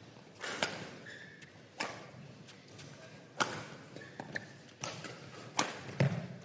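Badminton rally: a racket hitting a feathered shuttlecock back and forth, a sharp crack every second or two, about six strikes in all, with a couple of short, faint shoe squeaks on the court floor.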